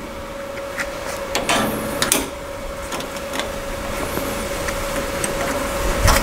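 Steel clamps and tools clinking and knocking against a sheet-metal door panel as they are handled, with a louder knock near the end, over a steady machine hum.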